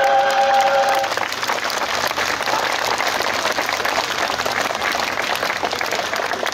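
Audience applauding, a dense patter of many hands clapping. A held musical chord cuts off about a second in, as the applause takes over.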